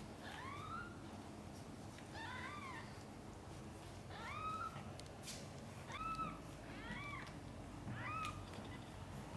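Newborn kitten mewing: about six short, high cries, each rising and then falling in pitch, roughly one a second.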